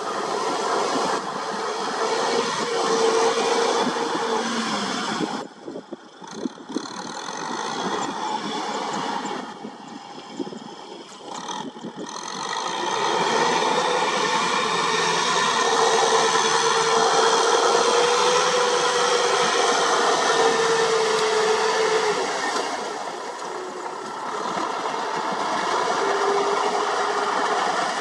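Kubota M6040 tractor's four-cylinder diesel engine running under load while its rear rotary tiller churns wet paddy mud, a clattering mechanical noise with a wavering whine through it. The sound drops away briefly a few seconds in and again for a couple of seconds near the middle.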